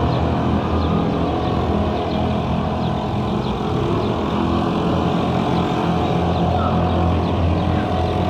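Boat motor running steadily: an even, low drone that holds without change.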